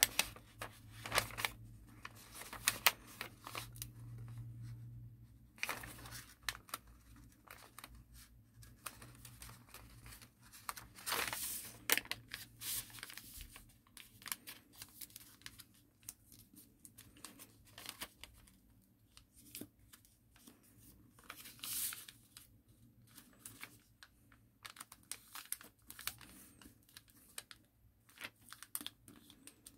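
A sheet of origami paper being folded and creased by hand: irregular paper rustles and crinkles, louder about eleven seconds in and again around twenty-two seconds.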